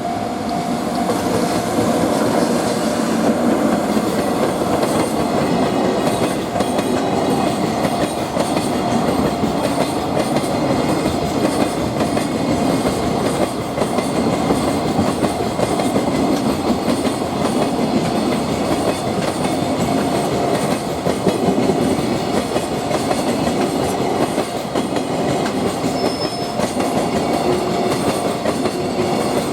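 Freight train wagons rolling past close by at steady speed, a continuous rumble of steel wheels on rail with clickety-clack over the rail joints.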